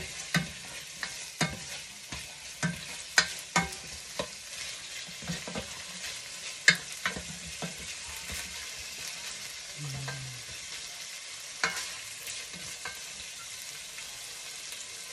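Chicken wings and vegetables sizzling as they fry in a nonstick pot, stirred with a spatula that knocks and scrapes against the pot. The knocks come irregularly and fairly often for the first half, then thin out to a few.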